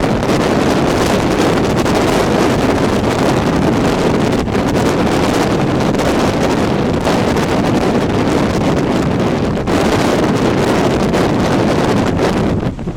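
Storm wind blowing hard across the microphone, a loud, steady rushing noise with slight dips.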